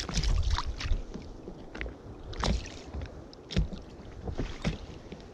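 Water splashing beside a small inflatable boat as a caught fish goes back into the sea, and several sharp knocks of fishing gear being handled on board. Wind rumbles on the microphone throughout.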